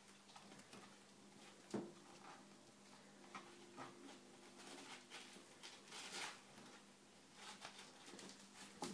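Kittens playing on a blanket: faint scuffling and rustling with light paw taps, a sharper knock about two seconds in and another near the end, over a faint steady hum.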